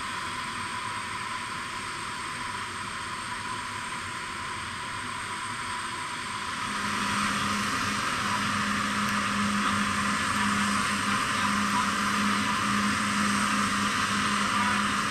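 Steady turbine hiss and whine of aircraft running on an airport ramp, with a thin high tone. About seven seconds in it grows louder and a low hum, beating about once a second, joins it.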